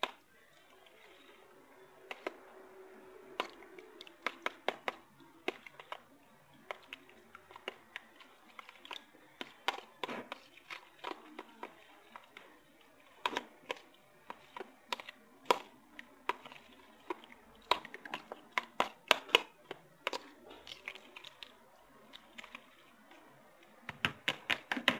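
A metal spoon clicking and scraping against a plastic tub as raw chicken pieces are stirred in beaten egg: irregular sharp taps, a few a second, with a quick run of them near the end.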